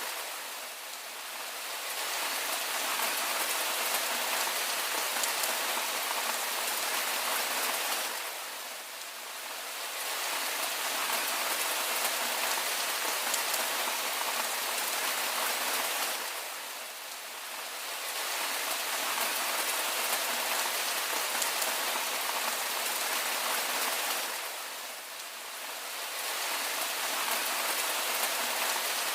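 Steady rain: a dense, even hiss of falling drops. The level dips briefly about every eight seconds.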